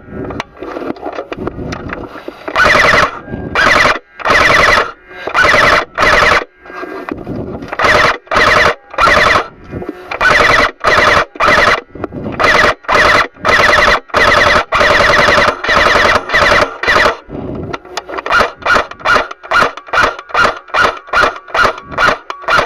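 Airsoft gun firing in short full-auto bursts, each a fast rattle of shots lasting about half a second to a second, repeated over and over. Near the end the firing changes to a quick string of single shots, about three a second.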